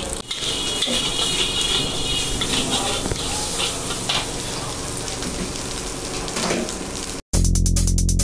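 Rice sizzling in a large wok as it is stir-fried with a steel ladle, with scattered scrapes and clanks of the ladle against the pan. About seven seconds in the sound drops out and electronic intro music with a drum-machine beat starts.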